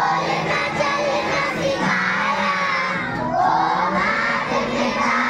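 A large group of children singing a prayer together in unison.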